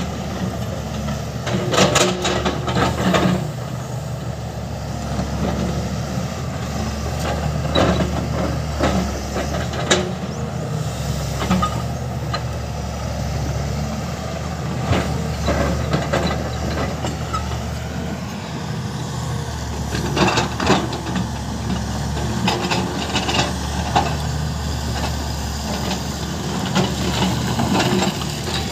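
SANY crawler excavator's diesel engine running steadily while it digs, with irregular clanks and scrapes of the steel bucket against rock and earth, the loudest about two seconds in and again around twenty seconds.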